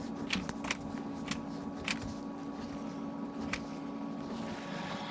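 Scattered light clicks and taps of pliers and plumbing fittings being handled, over a steady low hum that fades out near the end.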